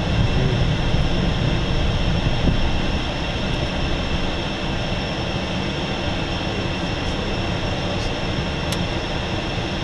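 Inside the cockpit of an Embraer Phenom 300, its twin Pratt & Whitney PW535 turbofan engines running: a steady rumble of engine and airflow with a high, steady whine on top. The level eases off slightly about three seconds in.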